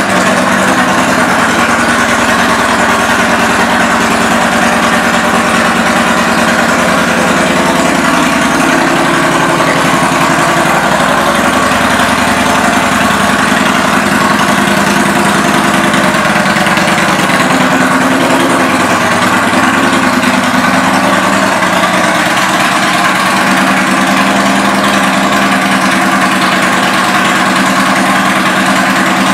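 2014 Yamaha Bolt's air-cooled V-twin idling steadily through aftermarket Vance & Hines exhaust pipes.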